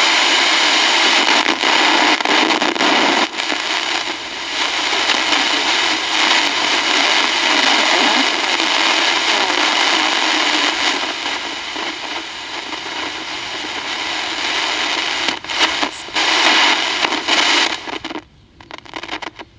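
Sokol 308 transistor radio's speaker giving out a loud, steady rushing noise while tuned on its FM band near 71–73 MHz: the wide signal that the repairer takes to be a digital television station in the lower band. From about 15 seconds in the noise drops out in short gaps as the tuning knob moves, and falls away near the end.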